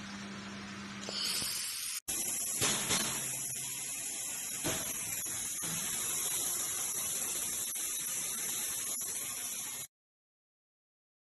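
Handheld fiber laser welder at work: a steady hiss of shielding gas and the weld, with a faint low hum for the first two seconds. After an abrupt cut about two seconds in, a louder steady hiss carries a thin high whine and a few small crackles, then cuts to silence about ten seconds in.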